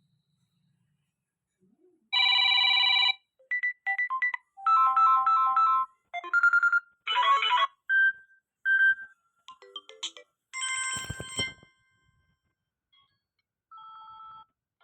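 Samsung Galaxy A03 ringtones playing one after another: a string of about ten short electronic melodies and chimes, each lasting about a second, with brief gaps between them. The last, near the end, is quieter.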